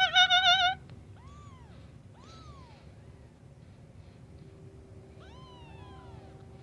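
Kittens mewing: one loud mew with a wavering pitch that ends under a second in, then short, faint, rising-and-falling mews about a second and two seconds in, and two overlapping ones near the end.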